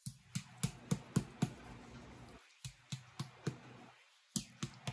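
A run of sharp clicks, several a second, coming in irregular runs with short pauses between them.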